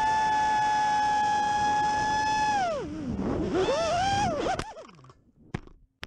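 FPV quadcopter's brushless motors whining steadily at high throttle. The pitch drops and wavers about three seconds in as the quad falls in a failed powerloop, and the whine cuts off sharply as it crashes into the ground, followed by a few short knocks.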